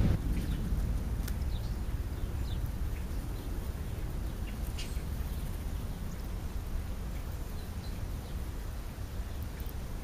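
A few short, faint bird calls scattered over a steady low rumble.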